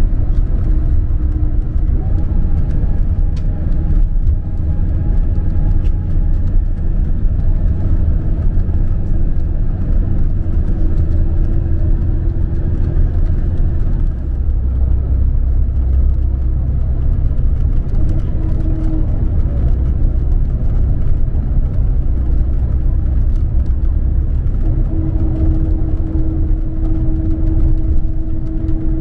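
Scania Caetano Levante 2 coach on the move, heard from inside: a steady low rumble of engine and road noise, with a steady hum that grows stronger near the end.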